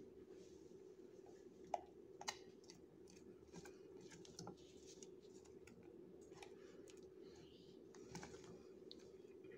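Faint scraping and small clicks of a spatula stirring thick cake batter in a glass blender jar, with two sharper taps about two seconds in, over a steady low hum.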